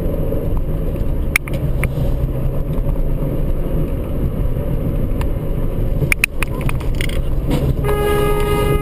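Steady low road and engine noise inside a moving car, with a few sharp clicks. A car horn sounds for about a second near the end.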